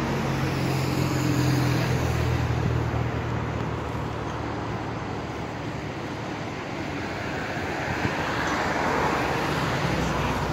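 Road traffic passing close by on a bridge. One vehicle's low engine hum fades over the first few seconds, and another vehicle passes with a louder rush near the end.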